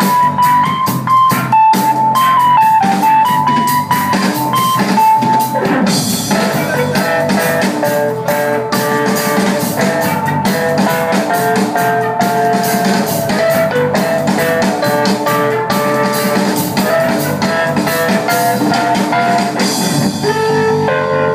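A live band playing with drums and keyboards. A steady beat runs under a melody line that shifts to lower notes about six seconds in.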